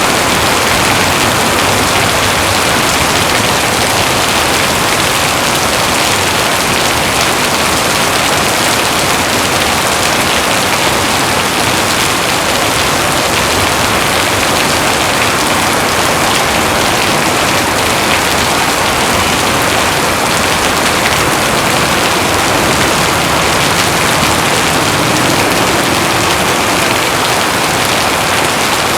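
Heavy rain falling steadily on surfaces, a dense even hiss with fine crackle of drops.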